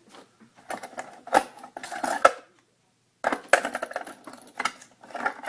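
Small metal tools clinking and rattling against each other and a hard surface as they are picked up and set down, in three short bursts with a brief pause near the middle.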